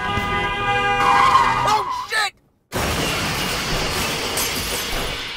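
Music and a man's voice, cut off abruptly about two seconds in. After half a second of silence comes a long crash of shattering glass, a truck-crash sound effect, which fades away at the end.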